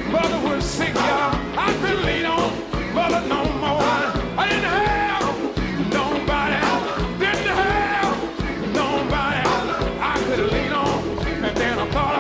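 Music with singing voices over a steady drum beat.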